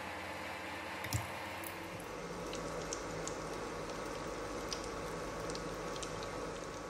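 Breaded potato cheese balls deep-frying in hot oil: a steady sizzle with scattered crackles and pops, busier from about two seconds in. A single sharp knock about a second in.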